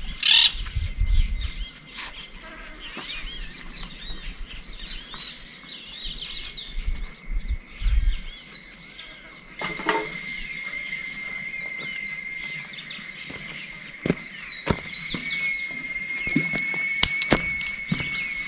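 Many wild birds chirping and calling at once, overlapping short calls. A steady high thin tone comes in strongly about halfway through, with a few sharp knocks near the start and near the end and low wind rumble on the microphone in the first couple of seconds.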